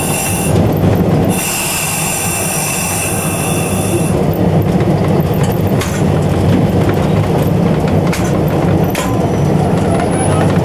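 Steel wheel flanges of a Southern Pacific SW1500 switcher squealing high and piercing as it rolls through curved track and a switch, in two stretches over the first four seconds. Beneath it the locomotive's diesel engine drones steadily, and a few sharp clicks of wheels over rail joints follow.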